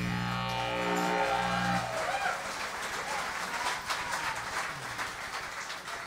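The live band's final chord rings on for about two seconds and then stops, giving way to audience applause with a few cheers, fading away.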